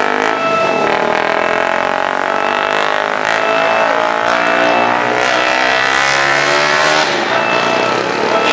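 A motor engine running close by, its pitch wavering up and down, until it drops away a second or so before the end.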